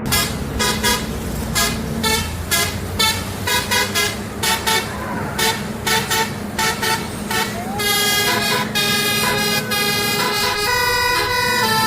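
Basuri telolet musical horn playing a tune. It sounds a run of short toots, about two a second, for roughly seven seconds, then switches to longer held chords with a few sliding notes.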